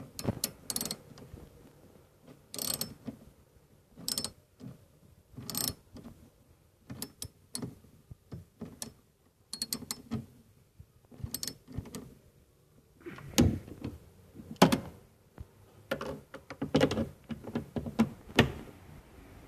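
Socket ratchet clicking in short, irregular runs while tightening the two 8 mm screws that hold the rear pillar trim of a VW Gol G5, with heavier knocks on the plastic trim near the end. The screws had worked loose from vibration, letting the trim rattle.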